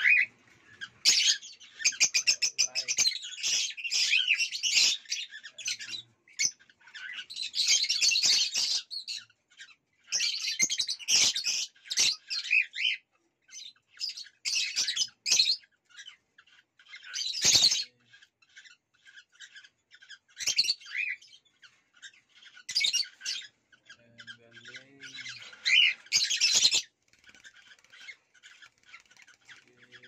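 Cockatiels calling in repeated bursts of harsh chattering and squawks, broken by short pauses.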